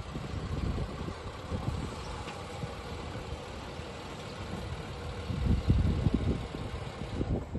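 A Nissan Pathfinder SUV's engine running at low speed as the vehicle creeps into a parking space and stops, with an irregular low wind rumble on the microphone that is strongest about two-thirds of the way through.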